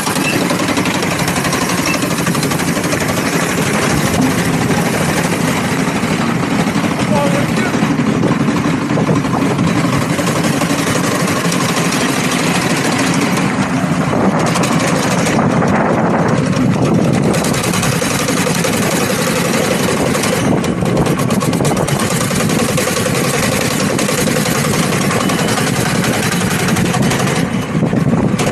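Small go-kart engine running steadily as the karts ride along, a loud even drone with no pauses.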